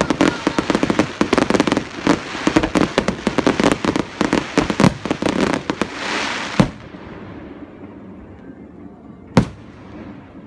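Fireworks going off: a rapid, dense crackle of many bangs for about five seconds, then a rushing hiss that ends in a sharp bang. After that it goes quieter, with one more loud bang near the end.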